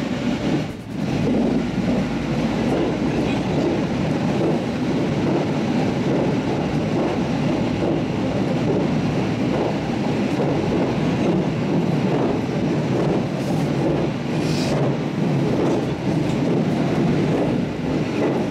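Electric commuter train running at speed, heard from the front of the train: a steady rolling rumble of wheels on rail. About fourteen seconds in there is a brief high hiss.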